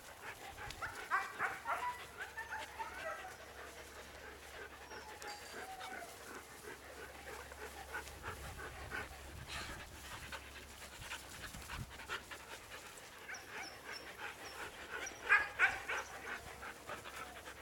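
Huskies panting and giving short whining calls that rise and fall in pitch as they play. The calls come in bunches near the start and again near the end.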